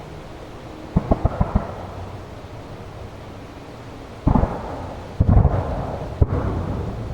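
Aerial fireworks shells bursting. A quick run of about six sharp bangs comes about a second in, then heavier booms with a rolling rumble from about four seconds on, and a single sharp crack near the end.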